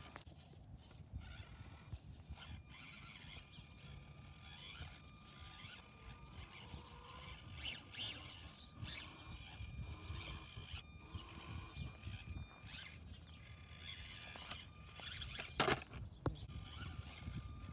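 Axial SCX24 Deadbolt micro RC crawler's small electric motor and gears whining thinly as it creeps along, with its tires scraping and rubbing over rough ground. There is one sharp click about fifteen seconds in.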